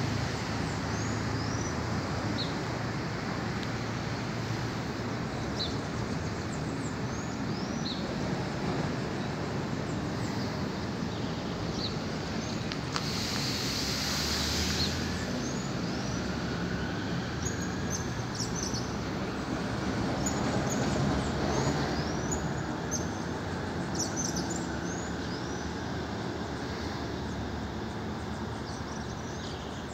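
Steady outdoor background rumble of distant traffic, with many short, high bird chirps scattered throughout and a brief hiss about 13 seconds in.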